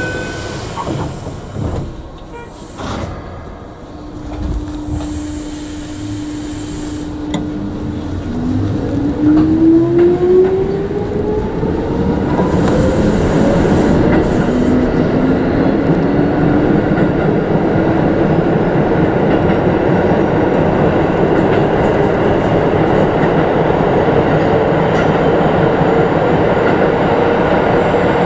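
Keikyu 1500-series electric train pulling away and accelerating in a tunnel, heard from the driver's cab. A steady hum comes first, then from about eight seconds in the traction motors whine, rising in pitch in two stages, over a growing rumble of wheels on the rails.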